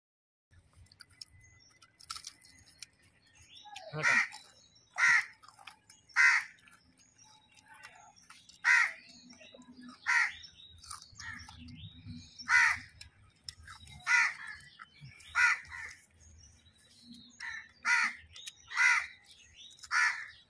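A crow cawing over and over: about a dozen short calls, each a second or so apart, starting about four seconds in.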